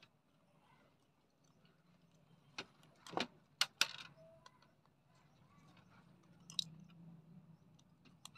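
Faint clicks and knocks of a screwdriver and small metal parts being handled while a heat sink plate is unscrewed from an amplifier board, several sharp taps about two and a half to four seconds in and one more later.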